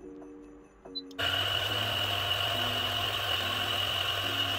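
DF64 single-dose grinder with 64 mm flat burrs switching on about a second in and running steadily, grinding a dose of about 18 grams of espresso beans.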